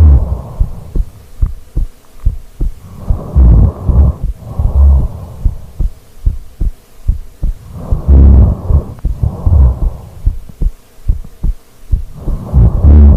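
A sleeping person's heartbeat picked up through a microphone against the body: a steady run of low thumps. Over it come three slow, deep breaths, each a loud in-and-out swell, about every four and a half seconds.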